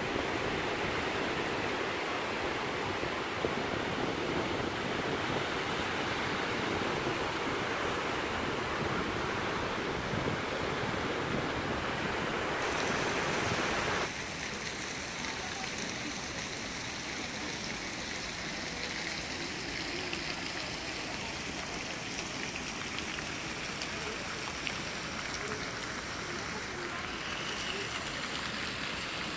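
Surf washing up the beach with wind on the microphone, a steady rushing noise. About halfway through it cuts abruptly to a quieter steady splashing of pool fountain jets falling onto the water.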